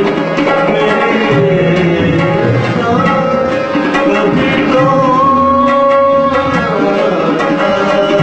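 Tabla drumming in a steady run of strokes under a sustained melodic line that slides in pitch, as in a live Punjabi folk or classical music performance.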